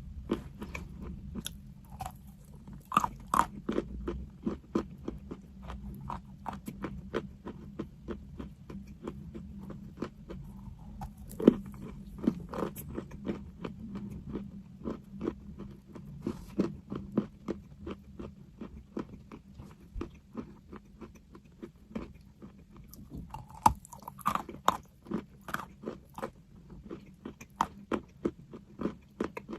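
A person chewing crunchy chalk up close: rapid crisp crunches, several a second, with a few louder snapping bites scattered through.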